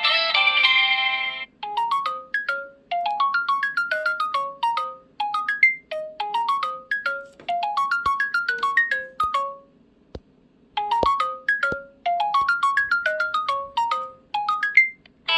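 Preloaded LG Stylo 2V ringtone playing: short, bright notes in quick rising runs that repeat, with a brief pause about ten seconds in. The end of a denser, different ringtone is heard for the first second and a half.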